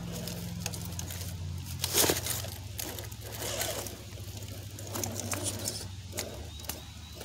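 Redcat Gen7 RC rock crawler's electric motor and geared drivetrain whirring at low speed as it crawls over rock, the hum dropping in pitch as the throttle eases. Its tyres and chassis scrape and click on the stones, with one sharp knock about two seconds in.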